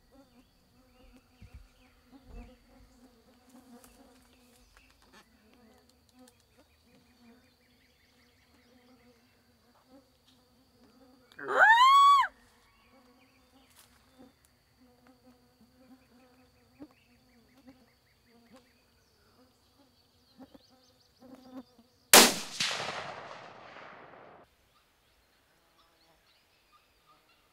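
Rifle shot about 22 seconds in, its echo rolling away over a couple of seconds. About halfway through, one short loud call rises and then falls in pitch. Flies buzz faintly throughout.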